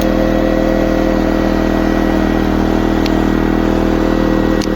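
ERAYAK portable inverter generator's small engine running steadily at full speed with Eco Mode switched off, a loud even hum with fixed tones. A sharp click near the end.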